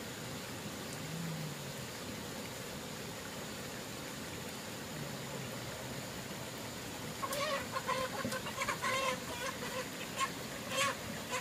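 Chickens clucking: a run of short, repeated calls beginning about seven seconds in, over a steady faint hiss.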